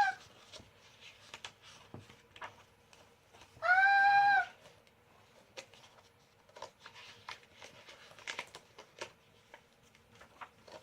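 A child's voice holding one long, high 'aah' for about a second, about four seconds in: the drawn-out build-up to a pretend sneeze. The rest is faint clicks and rustles.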